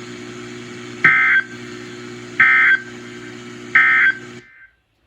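NOAA Weather Radio broadcast through a weather radio's speaker: three short bursts of warbling EAS/SAME digital data tones, about a second and a half apart, over a steady low hum. This is the end-of-message code that closes the severe thunderstorm warning. The broadcast then cuts off suddenly.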